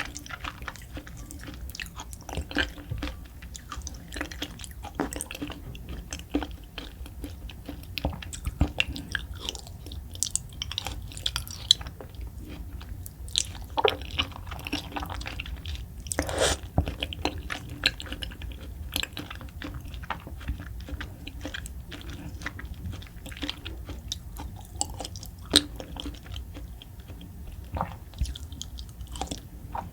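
Close-miked chewing of raw beef spinal cord: wet smacks and sharp little clicks of the mouth, coming irregularly and closely spaced throughout.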